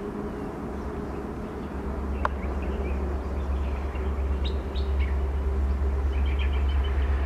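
Diesel locomotive's engine (EMD WDP4, a two-stroke V16) running as it approaches through a tunnel, a low steady sound that grows louder. Birds chirp over it several times.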